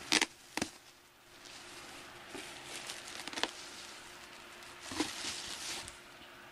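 Clear plastic wrapping on pillows crinkling and rustling as they are handled in a cardboard box: two sharp crackles in the first second, then spells of rustling around the middle and again near the end.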